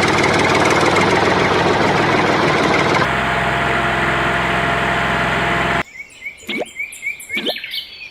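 A small motor running steadily with a dense buzz; its sound changes about three seconds in and it cuts off abruptly near six seconds, followed by bird chirps.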